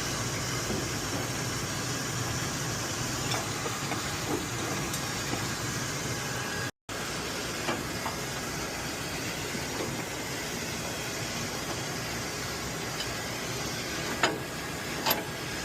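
Steady hissing background noise, with a few sharp metallic clicks near the end.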